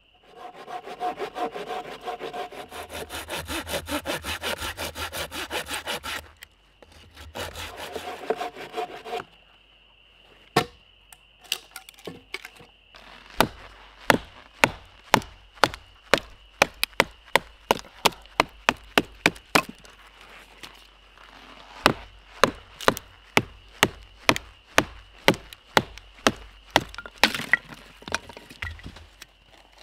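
Hand saw cutting through a piece of firewood with fast back-and-forth strokes, in two spells with a short break about six seconds in. From about ten seconds in come a long run of sharp knocks on the wood, roughly one and a half a second, pausing briefly around twenty seconds.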